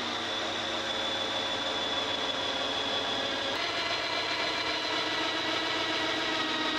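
Cordless drill running steadily as it bores a hole through the wall of a plastic container, a continuous motor whine whose pitch shifts slightly about halfway through.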